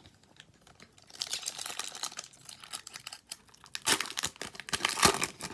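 Wrapper of a hockey trading-card pack crinkling and tearing as the pack is ripped open, with the loudest crinkles near the end.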